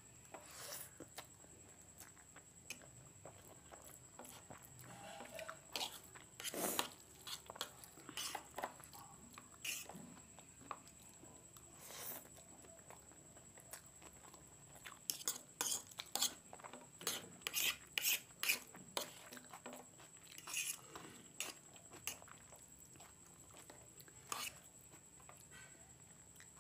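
Close-miked eating of instant noodles: a fork clinking and scraping on a plate, with chewing and mouth sounds, as short scattered clicks that come thick and fast for a few seconds past the middle.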